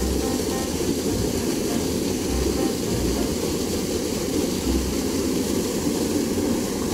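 Steady rushing of water spilling over a small concrete weir into a shallow stream, with a few low rumbles in between.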